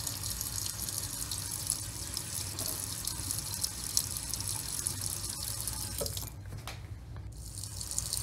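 Kitchen tap running in a steady stream into a stainless steel sink, splashing over wet hands and clay held under it. The splash thins briefly about six seconds in.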